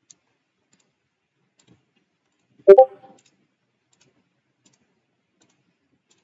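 A single short, sharp knock with a brief ring about three seconds in, against near silence; a faint tick at the start.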